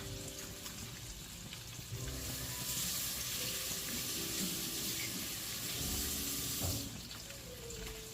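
Battered mushroom pieces deep-frying in hot oil, with a steady sizzle that swells into a louder rushing hiss for about four and a half seconds in the middle. Soft background music underneath.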